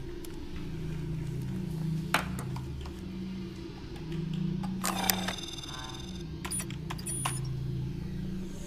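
Sci-fi computer console and alien device sound effects: a steady low electronic hum, with a sharp click about two seconds in and another about halfway. A run of short electronic beeps follows in the second half.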